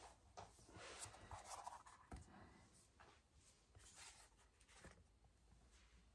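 Faint rustling and scraping of paper templates and EVA foam pieces being handled on a plywood board, with a soft knock about two seconds in.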